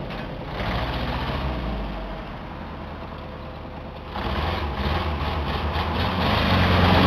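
Chevrolet S10 pickup engine idling, getting louder from about four seconds in.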